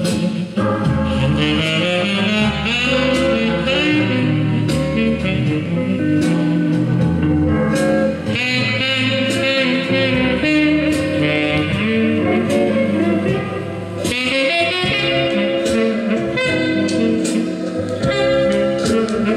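Music playing from a vinyl record on a Philips GF 808 Electrophon record player, with a steady beat and several instruments.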